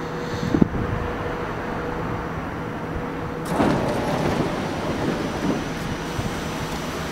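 Doors of a standing R44 subway train sliding open about three and a half seconds in, with a sudden burst of noise and rumbling, over the steady hum of the stopped train. A single knock sounds about half a second in.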